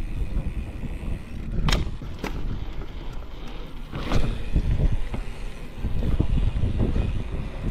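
Mountain bike riding over rough, cracked asphalt: a steady low rumble of wind on the microphone and tyre noise, broken by three sharp clicks, two close together about two seconds in and one about four seconds in.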